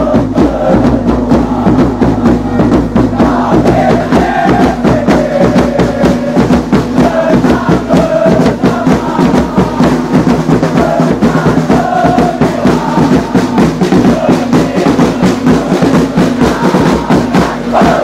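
A football supporters' section chanting in unison, with drums beating a fast, steady rhythm under the singing.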